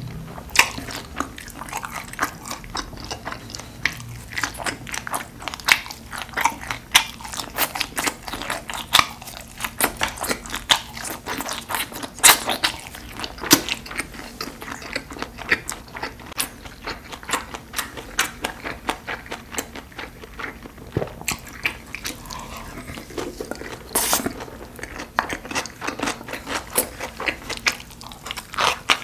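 A person chewing and eating, a steady, irregular run of quick mouth clicks and smacks with no talking.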